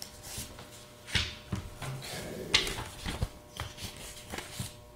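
Paper being handled: a handful of short rustles and light taps, the loudest about a second and two and a half seconds in.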